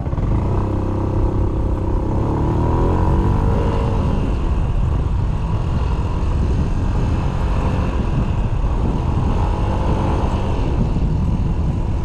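Yamaha Smax 155 scooter's single-cylinder four-stroke engine running under way. Its pitch rises over the first few seconds as the scooter speeds up, then holds fairly steady, easing up and down a little as the rider cruises.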